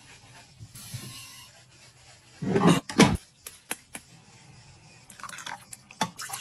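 A run of close-miked food-prep sounds: a stainless-steel cream siphon being shaken, then basil leaves being plucked from their stems, heard as rustles and sharp snaps. The loudest are two heavy bursts about two and a half to three seconds in.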